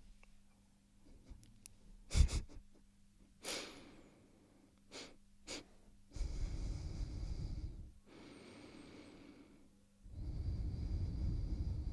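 A person breathing heavily close to the microphone: a few sharp clicks and short puffs, the loudest about two seconds in, then two long breaths of about two seconds each, one near the middle and one near the end.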